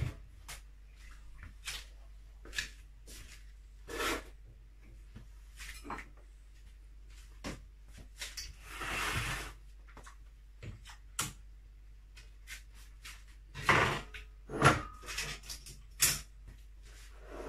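Kitchen handling noises: scattered clicks and knocks of things being moved and set down, with a short rush of noise about four seconds in and another, about a second long, near nine seconds. A busier run of louder knocks comes near the end.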